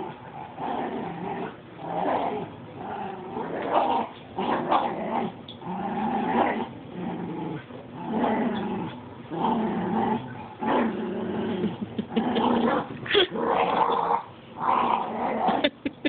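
Dogs growling in play during a tug-of-war over a plush toy: a run of rough growls, one after another, with short breaks between them.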